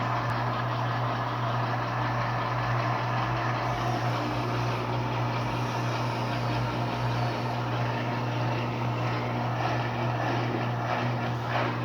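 Electrolux LTD13 13 kg washing machine spinning during its first rinse: a steady motor hum with a constant whooshing of the spinning drum.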